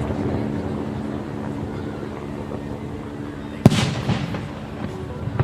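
Fireworks display: a single loud firework burst about two-thirds of the way in, followed by a rumbling echo that fades over a steady background din.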